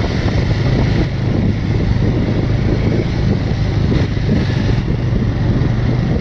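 Motorcycle engine running steadily under load on a steep mountain climb, with a low hum beneath a loud, dense wash of wind and road noise.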